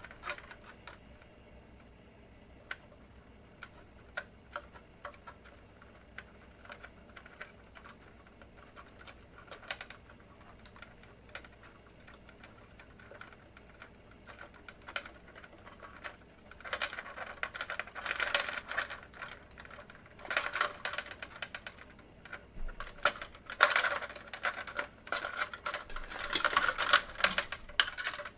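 Scattered small clicks and taps as wires and parts are handled inside a fluorescent shop-light fixture, turning into dense bursts of rattling and crinkling in the second half.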